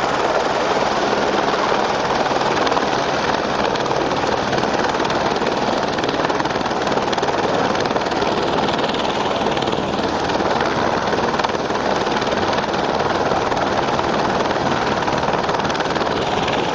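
Firefighting helicopter's rotor and turbine engine running with a steady, loud noise.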